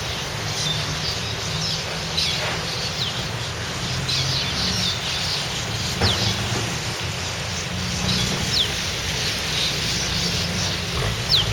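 Small birds perched on a wire chirping: scattered short, high calls, several sliding quickly downward in pitch, with a few brief clicks, over a steady low hum.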